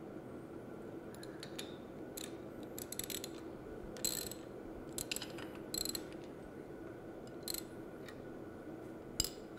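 Ratchet wrench clicking faintly and irregularly, about nine short clicks, as a 3/4-inch nylon lock nut on a grinder idler wheel is backed off a little so the over-tightened wheel bearings can spin freely.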